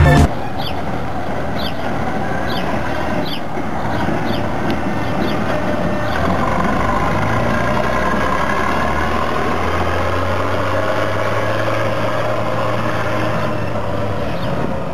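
Bizon combine harvester's diesel engine running steadily as the machine drives past, its pitch rising a little about six seconds in.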